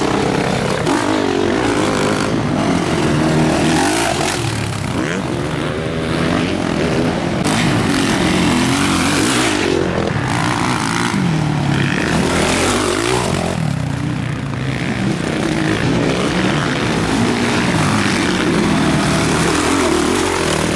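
Motocross bikes racing through a dirt-track corner, several passing one after another, their engine notes repeatedly rising and falling as the riders rev, shift and back off.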